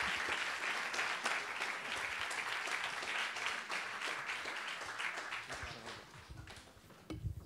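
Audience applauding, a dense patter of many hands that dies away in the last couple of seconds. A single low thump comes near the end.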